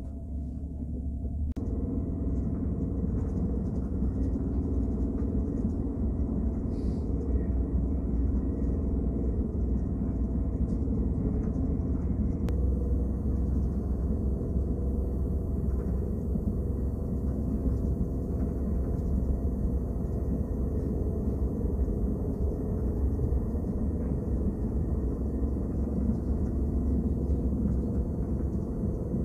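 Steady low rumble of a KTX high-speed train running at speed, heard from inside the passenger cabin. It grows louder about a second and a half in.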